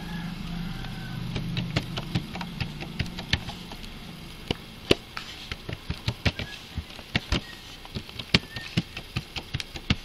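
Computer keyboard keys being typed, irregular single keystroke clicks a few a second, over a low hum that fades after about three seconds.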